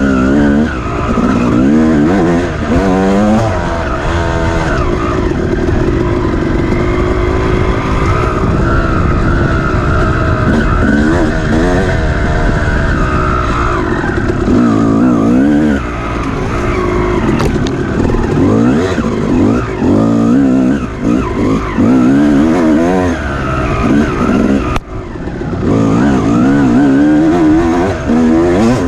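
Dirt bike engine racing over rough ground, revving up and down continuously as the throttle is worked and the gears change. The engine drops off briefly near the end before picking up again.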